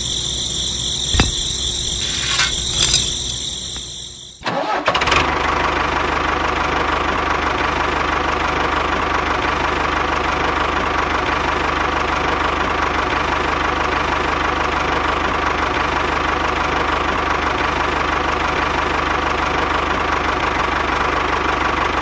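A steady high whine with a few clicks for about four seconds, then a tractor engine starts and runs steadily, idling.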